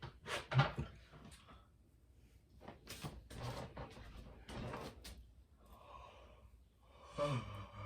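Scattered soft clicks, taps and rustles of things being handled, with a few murmured words near the end.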